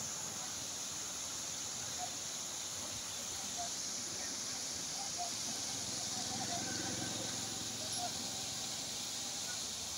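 Fast-flowing river water rushing over rapids, a steady, even hiss.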